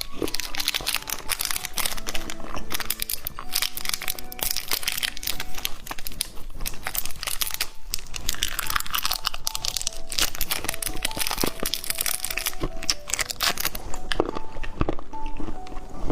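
Rapid crinkling and crunching of plastic candy packaging being handled and torn open, over soft background music.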